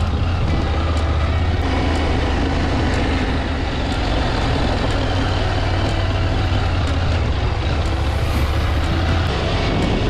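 Adventure motorcycle engine running steadily with a low hum as the bike rides a rocky dirt track. Scattered light clicks and knocks come through from the rough surface. The hum thins out shortly before the end.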